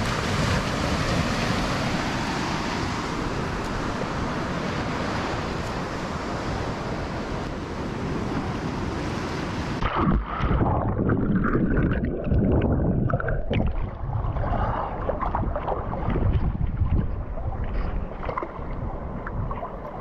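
Ocean surf washing onto a sandy beach, a steady even rush. About halfway it cuts to muffled sound from a camera under the water: a low churning rumble with uneven splashes and bubbling.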